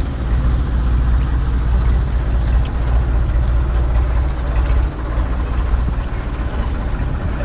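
Ford 3600 tractor's three-cylinder engine idling steadily, left running in neutral, a deep even rumble.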